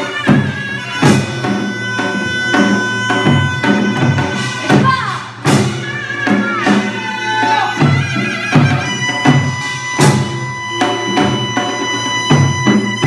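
Korean traditional music: a reedy wind instrument holds long notes with bending pitch over regular drum strokes.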